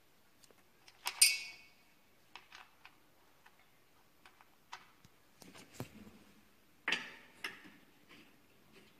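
Scattered clicks and knocks of exercise-bike parts being handled while the seat is fitted to its seat post. The loudest is a sharp knock with a brief ring about a second in, and another strong knock comes near seven seconds.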